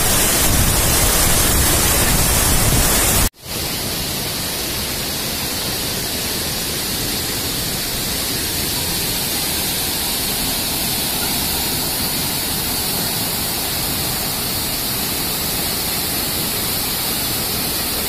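Waterfall crashing down into its pool: a steady, even rush of falling water. A little over three seconds in the sound drops out for an instant at an edit cut, then carries on slightly quieter.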